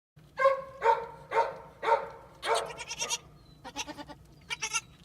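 Goat bleating: five short, loud calls in quick succession about half a second apart, followed by a few softer, shorter bleats.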